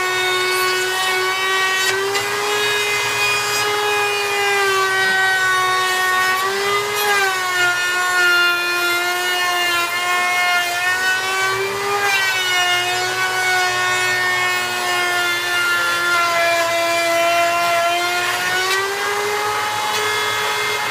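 Power tool motor whining steadily through woodworking on a curved wooden staff, its pitch sagging briefly a few times, about every five seconds.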